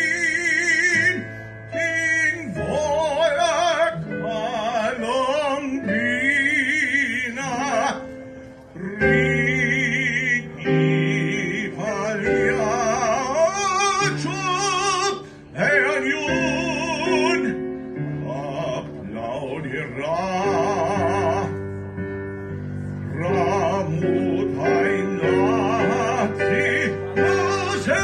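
A male tenor singing an operatic aria in full voice with a wide vibrato, in long phrases with brief breaths between them, over a sustained instrumental accompaniment.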